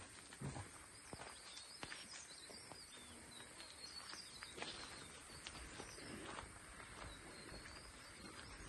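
Faint forest ambience: birds chirping and calling high over a quiet background, with scattered soft footsteps and knocks on the trail.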